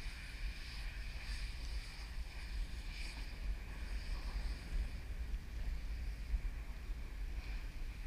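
Wind buffeting the microphone, a gusty low rumble, with a faint high-pitched whine that swells and fades.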